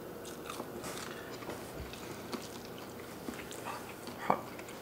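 People quietly chewing bites of fried lingcod fish cake: small soft mouth clicks and smacks, with one brief louder mouth sound about four seconds in.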